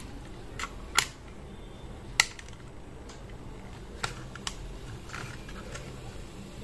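Sharp plastic clicks and snaps from a Sony WM-FX101 cassette Walkman being worked by hand: its cassette door and buttons. About eight separate clicks, the loudest about one and two seconds in.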